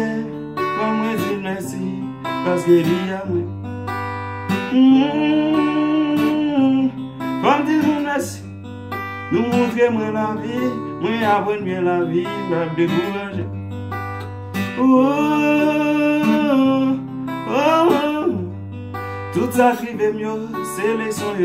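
Acoustic guitar strummed through a slow chord progression, the chords changing every second or two, with a man singing over it.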